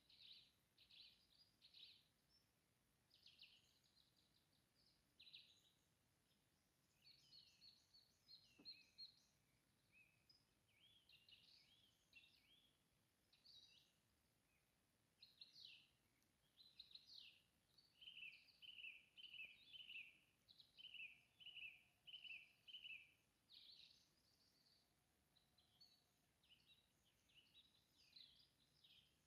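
Faint songbirds singing and calling, several overlapping chirps and trills. About halfway through, one bird repeats a short note about twice a second for several seconds.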